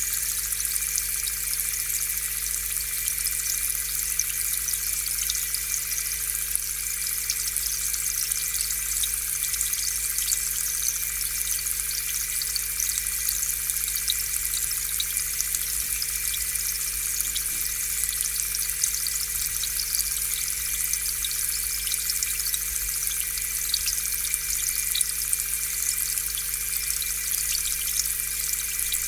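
Aquarium air pump running, with air bubbling through the tank water: a steady hum under a continuous fizz and patter of small bubbles.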